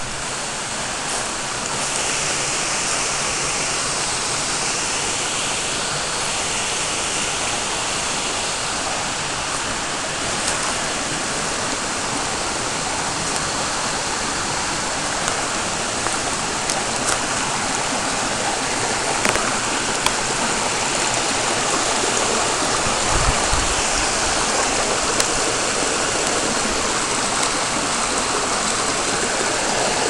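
Spring-fed mountain creek rushing over big rocks, a steady, even rush of water.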